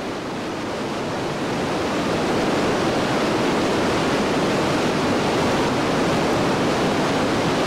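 Roar of the Iguazu Falls: a steady rushing of heavy falling water that swells over the first couple of seconds and then holds even.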